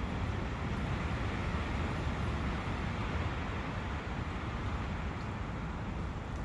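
A forest brook running steadily: an even, unbroken water noise.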